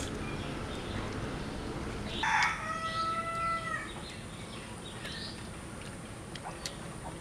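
A rooster crowing once, about two seconds in: a single held call lasting about a second and a half.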